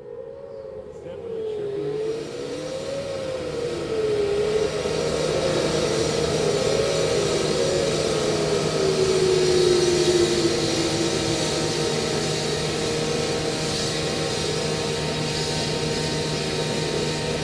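A Whelen WPS-4004 electronic siren's wavering tone slides lower and fades out partway through. Meanwhile a loud, steady rushing of vehicle noise with a low hum builds up during the first few seconds and then holds.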